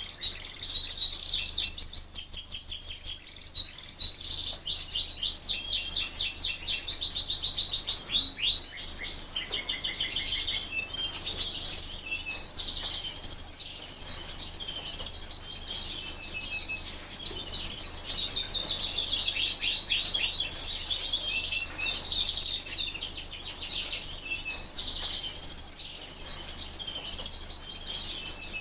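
Fife Fancy canaries singing: a continuous stream of fast trills and chirps, high-pitched and rapidly repeated, with no break.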